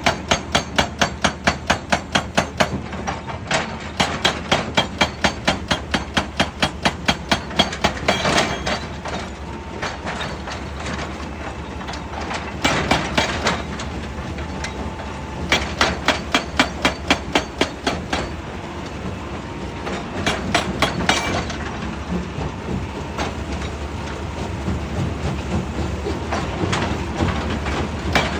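Rock-crushing machinery striking stone: bursts of rapid, rhythmic hard impacts, about four to five a second, over a steady low machine hum.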